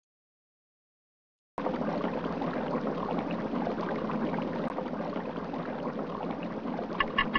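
Water sloshing and splashing, a swimming sound effect, starting abruptly about a second and a half in after total silence.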